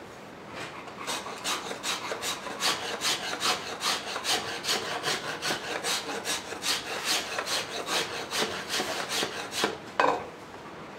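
A hand blade shaving a wooden spoon blank in quick, even scraping strokes, about three a second, followed near the end by one sharp knock.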